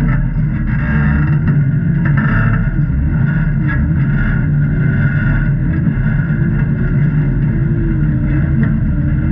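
Off-road vehicle engine running at low revs, with its pitch rising and falling slightly.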